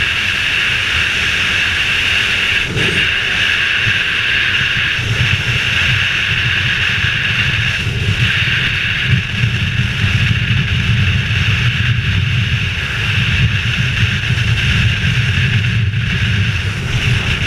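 Adventure motorcycle riding at road speed, heard from a helmet-mounted camera: steady wind rush over the helmet with a fluttering low rumble of the engine and wind buffeting beneath.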